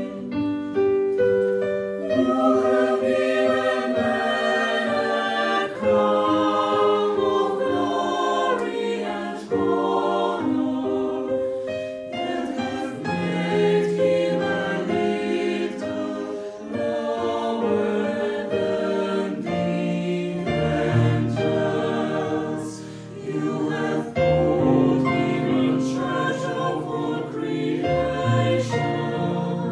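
Mixed choir of women's and men's voices singing a Polish Christmas carol (kolęda) in several-part harmony, with held notes. Lower notes join about two-thirds of the way through.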